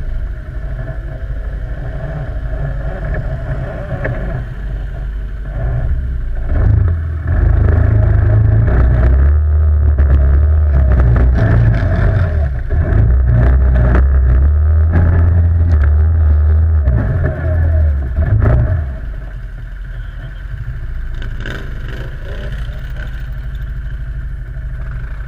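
Quad bike (ATV) engine running, pulling harder and louder from about seven seconds in, then easing back about two-thirds of the way through, with scattered knocks and clatter.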